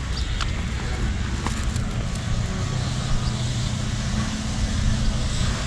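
A motor vehicle running: a steady low hum and rumble under a wide, even noise.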